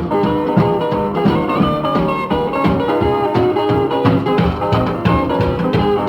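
Instrumental break in a 1940s boogie-blues record: the band keeps up a steady, even beat between sung verses, with no vocals.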